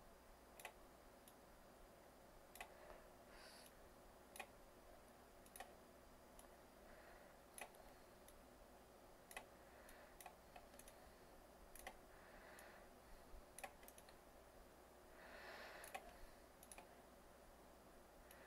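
Near silence with faint computer mouse clicks at irregular intervals, about one a second, and a few soft rustles.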